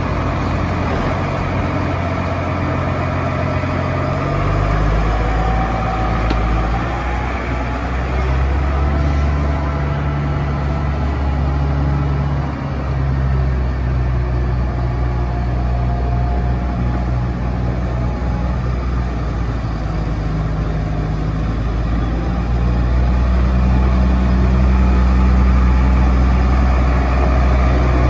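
Case IH MX240 tractor's 227 hp diesel engine running steadily as the tractor drives. Its note shifts about four seconds in and again around twelve seconds, and the engine grows a little louder near the end.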